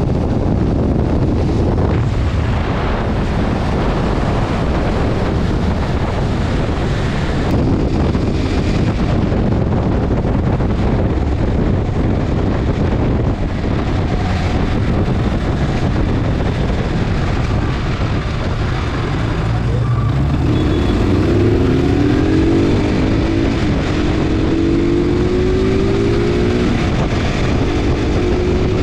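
Heavy wind and road noise on a camera riding on a motorcycle at highway speed. About two-thirds of the way through, a motorcycle engine note comes up and climbs in pitch in steps, as the bike accelerates through the gears.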